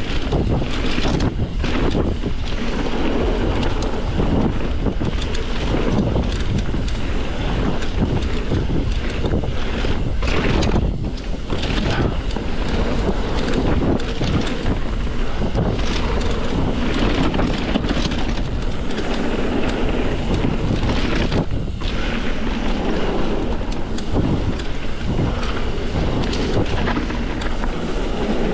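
Wind buffeting the microphone and knobby tyres rumbling over a dirt singletrack as a mountain bike descends at speed, with frequent short knocks and rattles from the bike over bumps and rocks.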